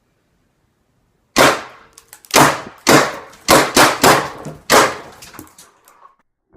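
Paintball gun firing about seven sharp shots in an uneven string, the first about a second and a half in, each crack dying away quickly.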